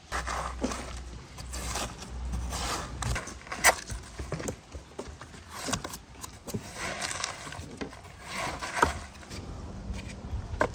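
A metal spoon scooping and scraping the flesh out of a halved watermelon, in repeated crunching strokes about once a second, with a sharp click a little under four seconds in.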